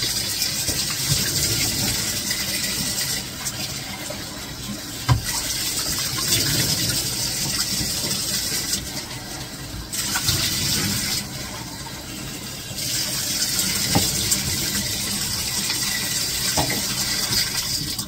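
Running and poured water splashing in a bathtub as a dog is rinsed down. It comes in several stretches of a few seconds each with short lulls between, and there are a couple of sharp knocks.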